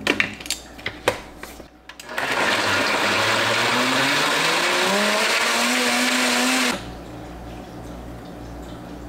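A few clicks and knocks as the blender jar is set on its base, then a countertop blender runs loudly for about four and a half seconds blending greens and water, its motor pitch climbing as it speeds up, and cuts off suddenly.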